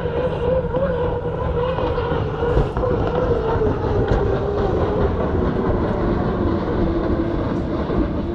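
Unlimited racing hydroplane's turbine engine whining as the boat runs at speed across the water: a steady, wavering tone that falls slightly in pitch near the end, over a low rumble.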